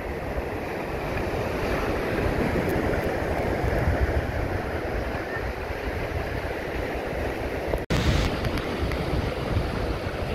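Small surf breaking and washing over the sand at the shoreline, a steady wash, with wind buffeting the microphone. The sound cuts out for an instant about eight seconds in.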